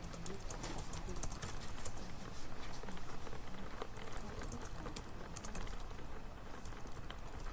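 Library ambience: irregular light clicks and taps like computer keyboard typing, over a steady low hum.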